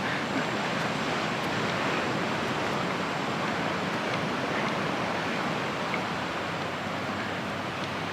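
Steady rush of ocean surf breaking along the beach.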